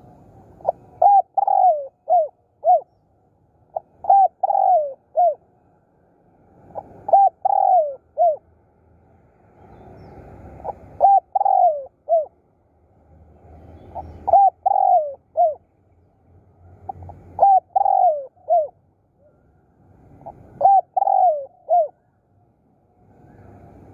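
Spotted dove cooing its song: seven phrases of four or five short coo notes, one phrase about every three seconds.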